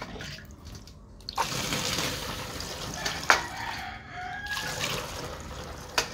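Rice-washing water poured and splashing from a plastic cup into a steel basin, with a sharp knock a little past three seconds in. A rooster crows over the splashing.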